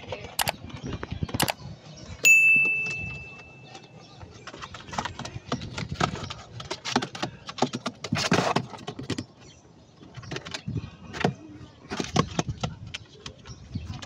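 Subscribe-button sound effect: two mouse clicks and then a bell ding that rings and fades. It is followed by a run of irregular knocks and scrapes against the cardboard trap box.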